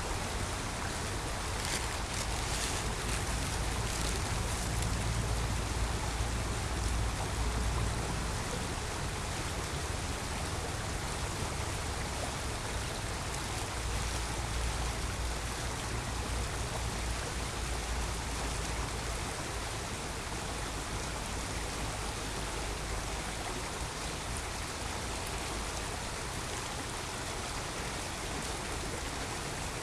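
Creek water running steadily, with a low rumble underneath that swells and fades.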